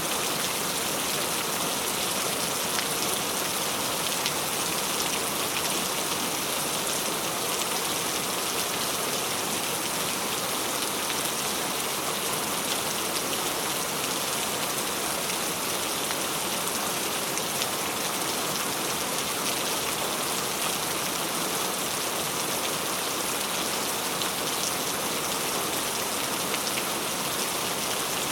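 Steady rain falling, an even hiss with scattered drop ticks through it, holding at the same strength throughout.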